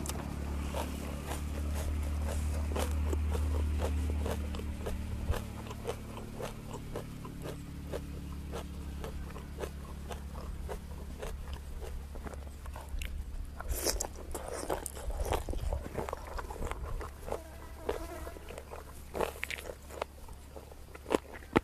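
Close-miked chewing and crunching of spicy chicken feet, a steady run of small wet clicks and crackles with a few louder cracks. A low buzz underneath is strongest in the first few seconds and fades out by about eight seconds in.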